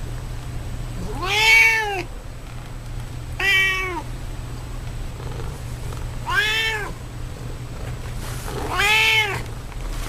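Domestic cat meowing four times, each meow a short call that rises and falls in pitch, spaced a couple of seconds apart.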